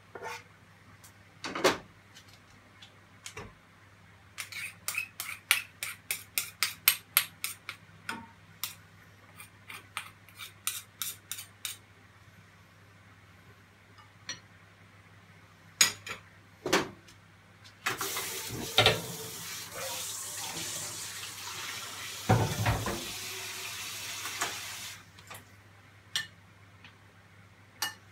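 A kitchen utensil tapping and scraping against a frying pan and a dish, with a quick run of clicks for several seconds. A tap then runs for about seven seconds, with a few dish clinks around it.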